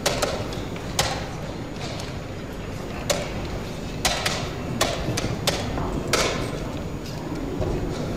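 Wooden chess pieces set down on the board and chess clock buttons pressed in turn in a fast game: a series of sharp clicks and knocks, about seven in eight seconds, over a steady low background noise.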